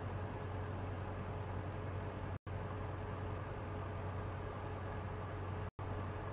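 Steady low mechanical hum over a background hiss, cut twice by brief, complete silences.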